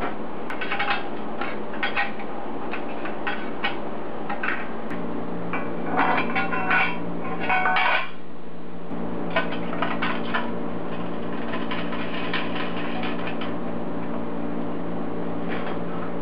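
Stainless steel heat shield clinking and scraping against a turbocharger's turbine housing as it is fitted by hand: irregular metal clicks and clinks, busiest a little past the middle. A steady low hum comes in about five seconds in.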